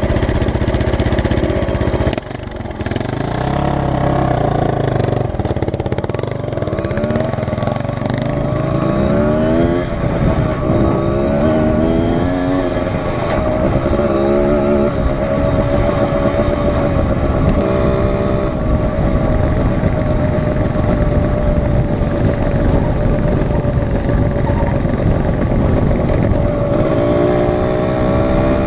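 Dirt bike engine running steadily, then pulling away and climbing through the gears, its pitch rising in repeated sweeps. It then holds a steady cruise before revving up again near the end.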